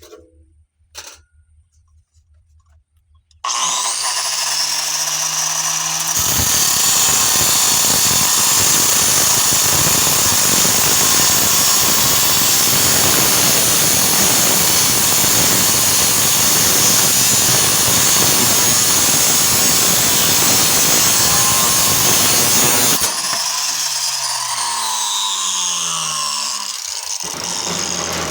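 Grinder fitted with an oversized circular-saw cutoff wheel, spinning up about three seconds in, then cutting through a metal doorknob with a loud, steady grinding for around seventeen seconds. Near the end the motor winds down with a falling whine.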